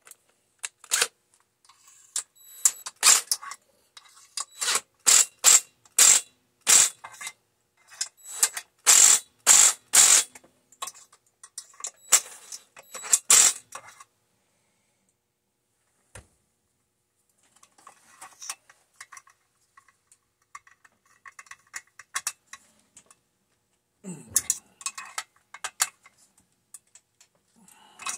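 Cordless drill/driver run in many short bursts for the first half, then small metallic clicks and clinks of parts being handled, with a single dull knock near the end.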